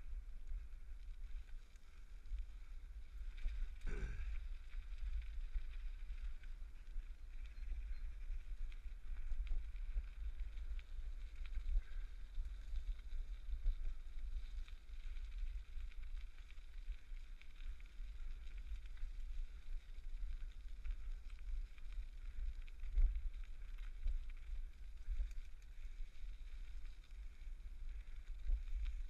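Bicycle riding along a gravel towpath, heard through a GoPro camera: a steady low rumble of tyres on the path and wind on the microphone. A brief sound falling in pitch comes about four seconds in, and a sharp bump about two-thirds of the way through.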